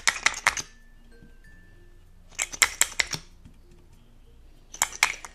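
Light plastic clicks and taps from lip gloss tubes and their applicator wands being handled, in three quick clusters of several clicks each.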